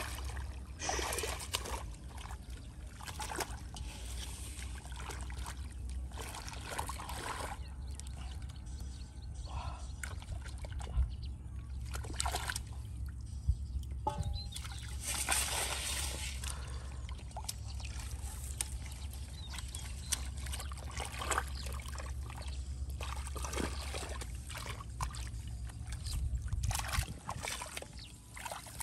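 Hands groping and splashing in shallow muddy water, with irregular sloshes and trickles of water, over a steady low rumble.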